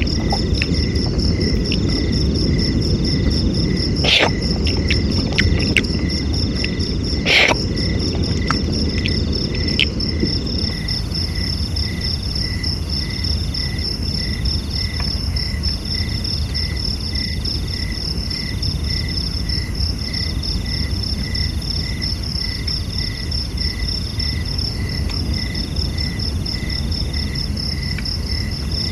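Insects calling steadily in overlapping layers: a high trill, an evenly pulsed chirp about twice a second, and a call that comes and goes in stretches, over a steady low rushing noise. Two sharp knocks sound about four and seven seconds in.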